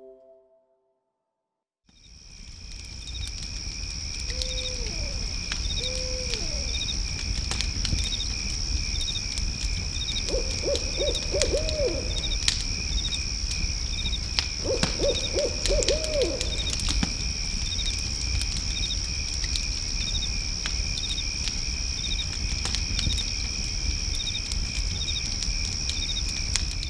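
Night-time nature ambience with a steady high insect chirping and regular pulsed chirps over a low rumble, starting after about two seconds of silence. A few low calls come through it: two short hoots about five seconds in, then two quavering trills later.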